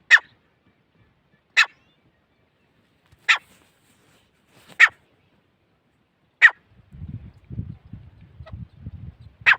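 Gray francolin calling: six sharp, loud calls, one about every one and a half seconds, with a longer pause before the last. A faint low rumble joins about seven seconds in.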